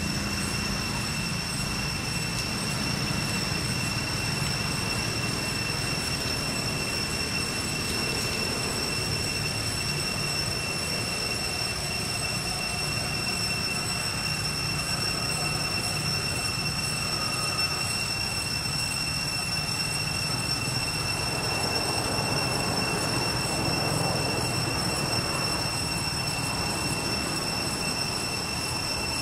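Steady, high-pitched cicada drone in the forest canopy, holding one shrill pitch with fainter overtones above it, over a low rumble.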